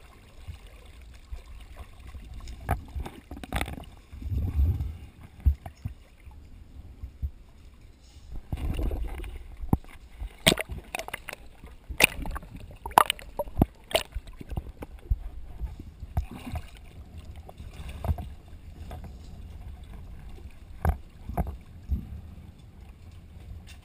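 Water sloshing and splashing around an underwater camera rig at the surface beside a boat, then lifted out of the water. A string of sharp knocks and clicks comes in the middle, from the camera rig being handled and bumped.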